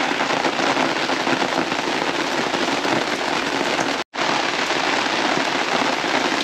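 Dense, steady patter of falling water, like rain on a surface. It breaks off for an instant about four seconds in and resumes.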